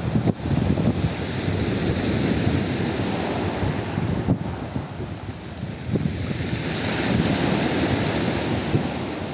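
Small sea waves breaking and washing up on the shore, with wind buffeting the microphone. The surf swells a little louder about seven seconds in.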